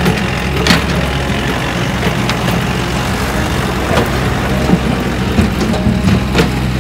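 Diesel engines running steadily: a Komatsu PC58 mini excavator working, with a dump truck close by. Scattered knocks and clatter of brick rubble under the bucket come through several times.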